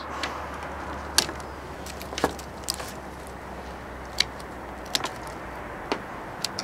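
Hand pruning shears (secateurs) snipping dry twigs: about seven short, sharp clicks at uneven intervals, over a steady low outdoor background.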